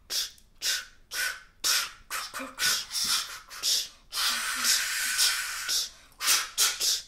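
A voice making hissing, sibilant consonant sounds in a rhythm, about two a second, as a diction exercise on the consonants of the Polish word 'wdzięczność'. There is one longer drawn-out hiss in the middle.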